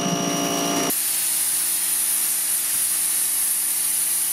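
Parkside PHD 170 C2 pressure washer at work. First a rotary surface cleaner runs over decking with a steady whine over spray noise. About a second in this changes abruptly to a lance's high-pressure water jet hitting a slab, a steady high hiss.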